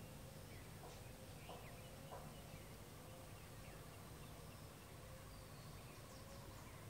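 Faint rural evening ambience, close to silence: distant birds chirping and calling, with a low call repeating about once a second over a steady low hum.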